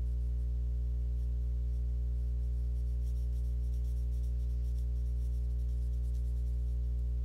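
Pencil scratching on sketchbook paper in many short strokes as a small area is filled in with shading, over a steady low hum.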